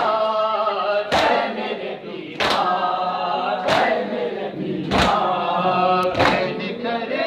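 Men chanting a noha, a Shia mourning lament: a lead voice with the crowd singing along. The whole group beats their chests (matam) together, about one strike every 1.25 seconds, in time with the chant.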